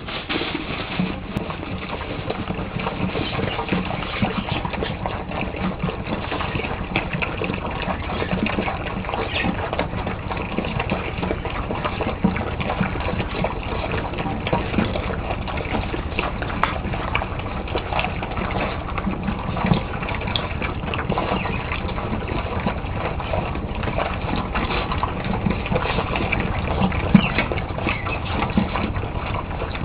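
Puppies eating: a continuous busy jumble of chewing and lapping noises, full of small clicks.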